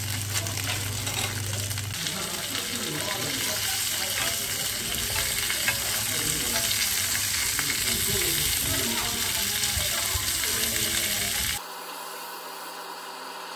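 Asparagus spears sizzling in a hot grill pan as they are turned with tongs. The sizzle cuts off suddenly about eleven and a half seconds in, leaving a fainter hiss.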